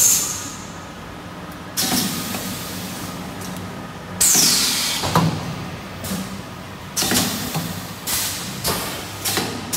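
Thermoforming vacuum packaging machine running: its pneumatic valves and cylinders give off repeated sudden hisses of air with clunks over a steady machine hum, the longest hiss about four seconds in, falling in pitch.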